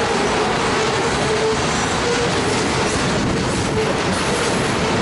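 Freight train's covered hopper cars rolling past: a steady rumble and rattle of steel wheels on the rails, with a faint wavering squeal that comes and goes.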